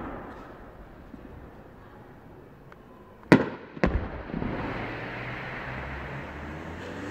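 Aerial fireworks: the echo of an earlier bang fades out, then two sharp shell bursts about half a second apart come a little over three seconds in, followed by a long rolling echo and rumble as the stars burn.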